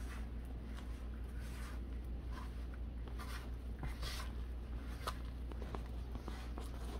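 Metal utensil stirring and scraping through thick, floury banana bread batter in a mixing bowl: soft irregular strokes with an occasional click, over a steady low hum.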